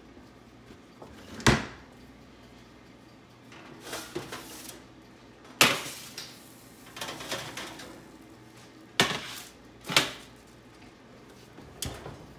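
Metal baking sheets clanking and scraping against the oven racks as they are pulled out, with five sharp knocks spread through. The last knock, near the end, is the oven door shutting.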